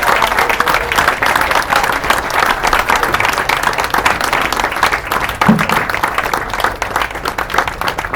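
Audience applauding at the end of a song, thinning to scattered claps near the end.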